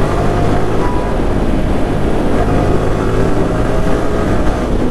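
Wind rushing over the camera microphone on a moving motorcycle, with the Yamaha R15 V3's single-cylinder engine running underneath as the bike gains speed.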